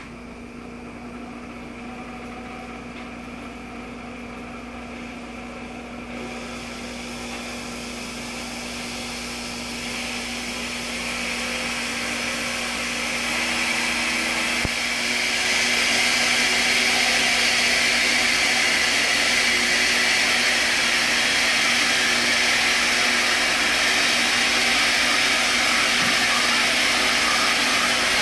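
Large handheld high-speed immersion mixer running in a tank of liquid: a steady motor whir with a rushing churn of the liquid. It grows steadily louder and brighter over roughly the first fifteen seconds, then holds steady.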